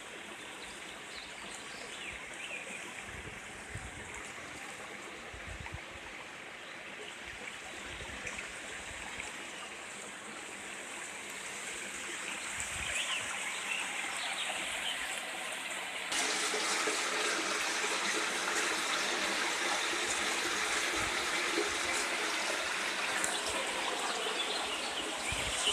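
Small river's water trickling and flowing steadily, getting louder over the second half with a sudden jump in level about two-thirds of the way through.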